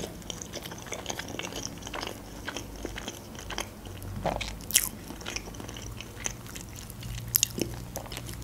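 Close-miked chewing of a mouthful of cheesy lavash casserole with sausage: soft wet mouth clicks and smacks, with a few sharper clicks scattered through.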